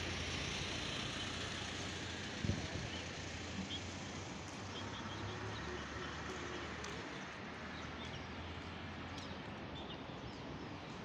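Roadside ambience: a low vehicle engine hum that fades out about nine seconds in, with faint bird chirps and a single thump about two and a half seconds in.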